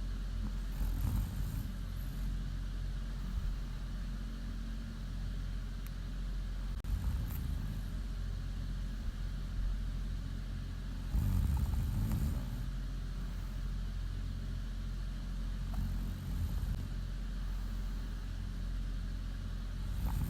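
A woman snoring in her sleep, one snore about every four to five seconds, over a steady low hum.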